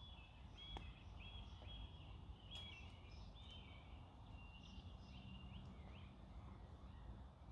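Faint birdsong: a small bird singing a run of high chirps and short trills over a low steady outdoor rumble.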